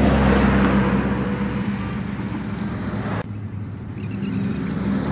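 A steady engine drone with a loud rushing noise over it; the higher rushing part drops away suddenly about three seconds in.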